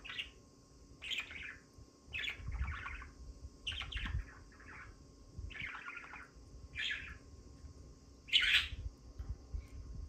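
Pet parrots chirping: about a dozen short, separate chirps at irregular intervals, the loudest near the end.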